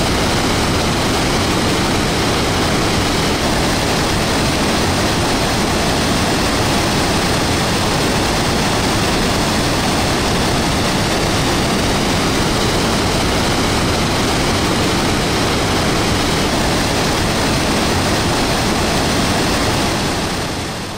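The Rhine Falls, a large waterfall: a loud, steady rush of falling and churning whitewater. It fades out near the end.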